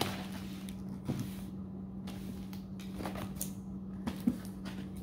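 Handling a plastic-wrapped cardboard shipping box: a sharp knock as it begins, then a few lighter knocks and rustles, over a steady low hum.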